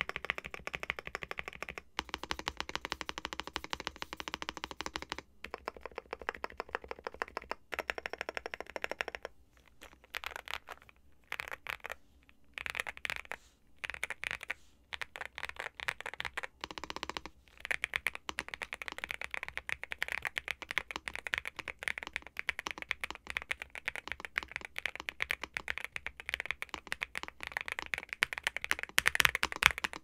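Typing on a NuPhy Gem80 mechanical keyboard fitted with stock Gateron x NuPhy Raspberry switches, a silicone strip and a polycarbonate (PC) plate: a rapid patter of keystrokes with a few short pauses in the first half, then steadier and louder typing in the second half.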